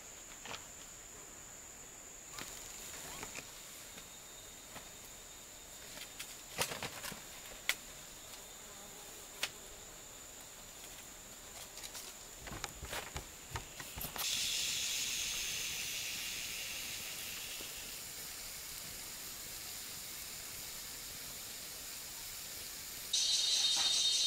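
A thin steady high insect drone with scattered small clicks and knocks. About halfway through, a loud high hiss starts suddenly and slowly fades. Near the end, a louder pulsing high buzz starts abruptly.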